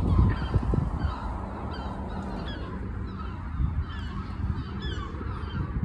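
Single-deck bus engine idling with a low rumble, while birds call over it again and again in short falling notes.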